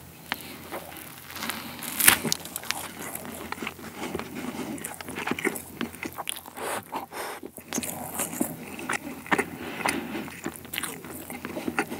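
Close-miked bites and chewing of a crusty mentaiko (pollock roe) baguette: sharp crunches of the crust, the loudest about two seconds in, then repeated crunching as he chews.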